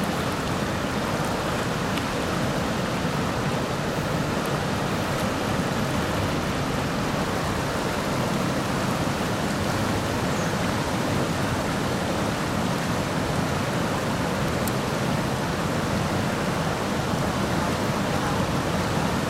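Steady rushing of river water pouring over a dam spillway and churning through whitewater.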